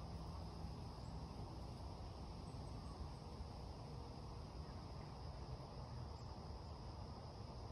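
Quiet outdoor ambience: a faint, steady high-pitched insect drone over a low rumble.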